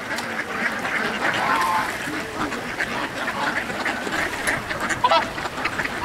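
A large flock of mallard ducks quacking, many calls overlapping into a continuous clamour, with a couple of brief, clearer calls standing out.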